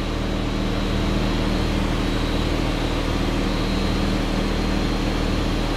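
Steady machine hum: a constant low drone with an even hiss over it, like a fan running, with no change in it throughout.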